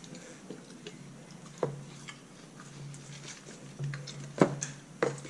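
A few sharp clicks and knocks of things being handled on a table during a meal, the loudest about four and a half seconds in, over a low steady hum.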